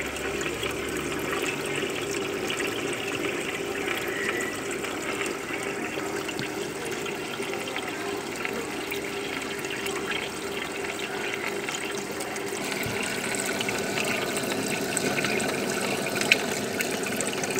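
Water from a top-mounted aquarium filter pouring back into the tank, a steady splashing and bubbling at the surface. One sharp click near the end.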